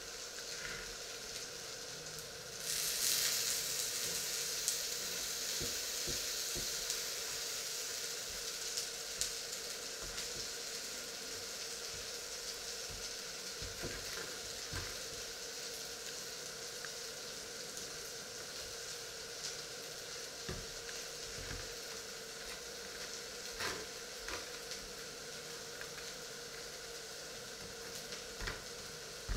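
Two patties frying in a pan with a steady sizzle that rises sharply about three seconds in and then slowly eases off. Under it a faint steady hum, and now and then a light tap or scrape of a table knife on a wooden board.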